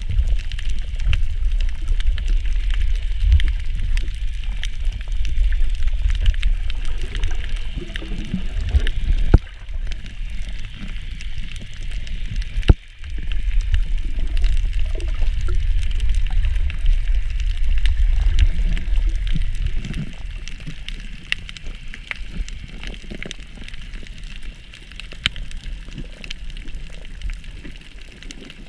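Underwater water noise heard through a submerged camera: a steady low rumble and rush of moving water, with two sharp knocks about nine and thirteen seconds in. It grows quieter over the last third.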